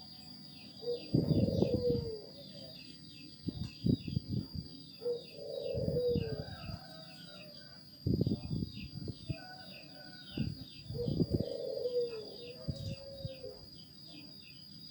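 A dove cooing three times, each call ending in a downward slide, with low thuds around the calls. A steady high whine and fast, even ticking run behind.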